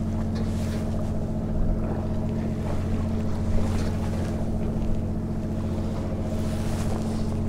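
Fishing boat's engine running with a steady, even drone.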